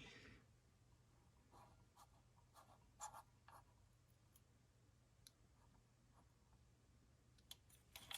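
Near silence: room tone with a few faint, scattered clicks and light taps.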